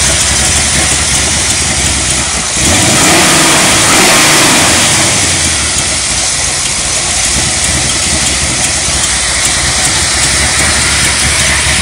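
383 stroker small-block V8 with aluminum heads and an Edelbrock top end, running loud at idle. About two and a half seconds in it revs up briefly, then settles back to idle.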